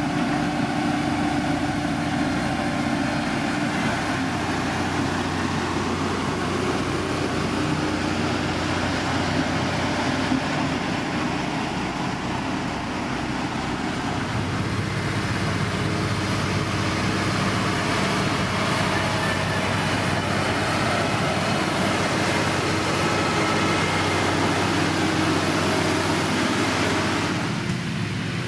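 Heavy road-building machinery's diesel engine running steadily under load, its note shifting about halfway through, with an abrupt change in the sound near the end.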